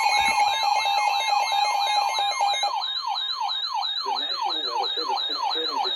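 Electronic emergency-alert alarm of several layered tones: falling siren-like sweeps about three times a second over a fast high warble, with a steady tone under them that drops out about halfway through. It signals an incoming weather alert, here a marine warning.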